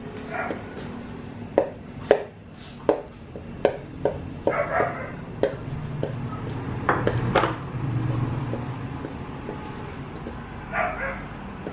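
Wooden spatula knocking and scraping against an aluminium wok as butter is stirred, with a dozen or so sharp taps. A dog barks a few short times in the background.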